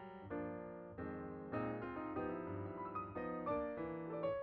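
Background piano music, a sequence of single notes and chords.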